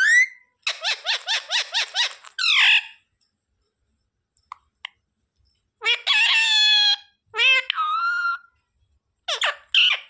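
Indian ringneck parakeet calling: a fast run of about eight shrill chattering notes, then a longer call. After a pause of about three seconds come two drawn-out calls, and more calls near the end.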